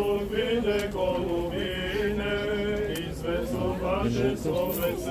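Male voice chanting an Orthodox liturgical hymn, with long held notes that slide from one pitch to the next.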